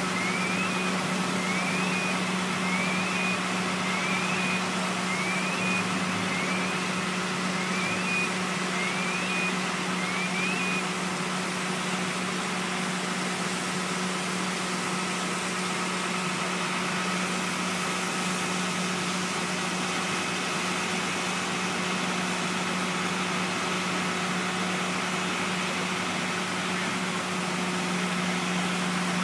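An engine running steadily with a deep hum, under a steady hiss. A short rising chirp repeats about every 0.7 s and stops about ten seconds in.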